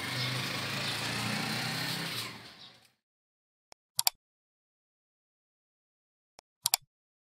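A steady low mechanical hum with hiss fades out about two and a half seconds in. After the fade there is silence, broken twice by sharp double clicks, about four and about six and a half seconds in: the mouse-click sound effects of a subscribe-button animation.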